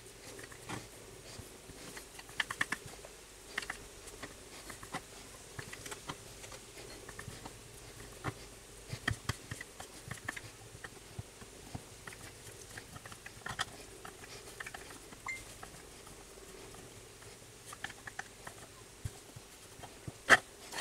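Kitchen knife chopping cooked chicken on a wooden chopping board: light, irregular taps and clicks, with a faint steady hum underneath.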